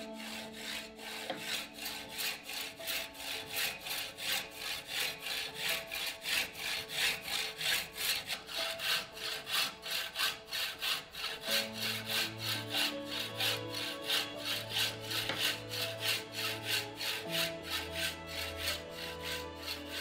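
Hacksaw cutting through a bicycle fork's steerer tube held in a saw guide, in regular back-and-forth strokes about two a second.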